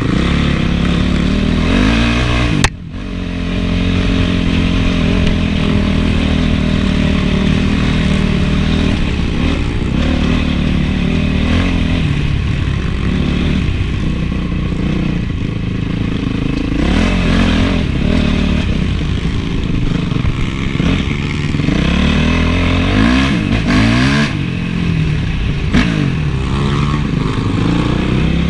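Honda CRF450's single-cylinder four-stroke engine running under riding load, its pitch rising and falling as the throttle is opened and closed. There is a sharp spike and a brief cut in the sound about three seconds in.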